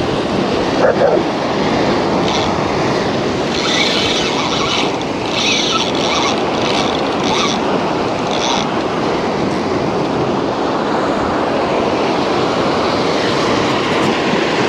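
Surf breaking and washing over the boulders of a rock breakwater, a steady loud wash of waves, with a few short, higher hissing bursts in the first half.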